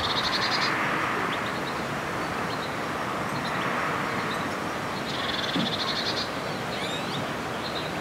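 A small songbird gives a rapid, high-pitched trill twice, each about a second long, once near the start and again about five seconds in, with a few short chirps between. Under it runs a steady rush of background noise.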